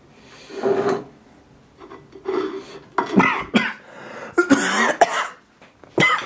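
A man coughing and clearing his throat in a string of short fits, loudest about five seconds in, from the pepper spray irritating his nose and throat.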